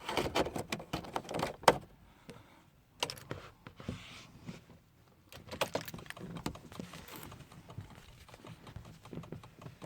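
Irregular plastic clicks and knocks from handling and pressing a car's dashboard fog light switch and its plug connector, with the sharpest click between one and two seconds in.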